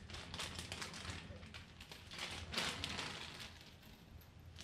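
Clear plastic parts bag crinkling and rustling in irregular bursts as it is handled and opened, loudest about two and a half seconds in.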